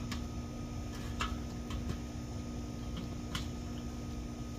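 A few light, scattered clicks and taps from Weber kettle grill parts being handled, over a steady background hum.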